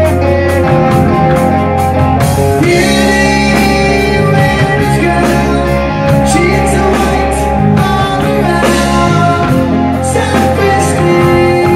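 Live rock band playing loudly: two electric guitars, electric bass and a drum kit with cymbals, an original song.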